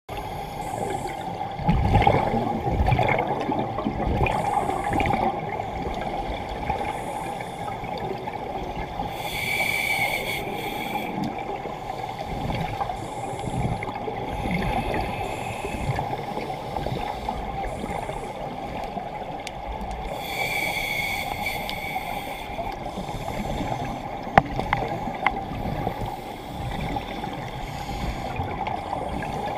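A scuba diver breathing through a regulator, heard underwater: exhaled bubbles gurgle for a few seconds at a time, and two inhalations, about 10 and 20 seconds in, each give a hiss with a thin whistle, about every ten seconds. A single sharp click comes near the end.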